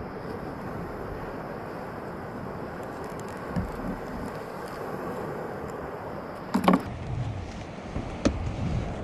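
Steady wind rushing over the microphone on open water, with one short, sharp sound about six and a half seconds in and a click shortly after eight seconds.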